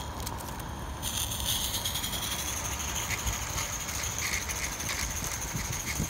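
Accucraft Dolgoch live-steam model locomotive: a steady steam hiss with fast, even exhaust beats starts about a second in and keeps going. Wind rumbles on the microphone.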